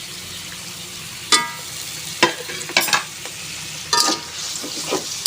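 A spatula stirring and scraping a pan of sizzling sauce of fried shallots, tomato and chili sauce and water, with a steady sizzle under about half a dozen sharp knocks and clinks of the utensil against the pan.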